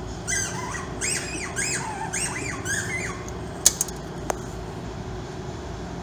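A run of about five short chirping calls from an animal or bird, each rising and falling in pitch, over a steady background hum. Just after they stop come three sharp clicks, the loudest sounds.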